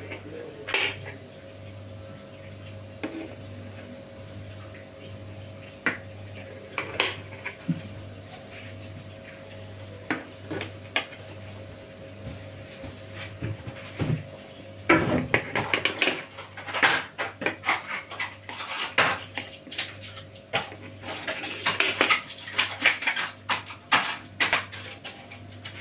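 Kitchen knife cutting a frozen chocolate sheet cake in a metal baking tray, the blade clicking and scraping against the tray. A few separate clicks at first, then a dense run of clicks and scrapes over the last ten seconds.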